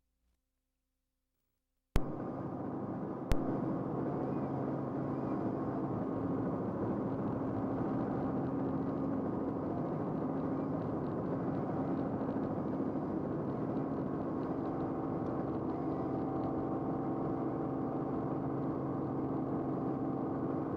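Near silence for about two seconds, then a sharp click as steady aircraft noise starts abruptly, a steady engine drone with several held tones, heard from inside the aircraft; a second click follows about a second later.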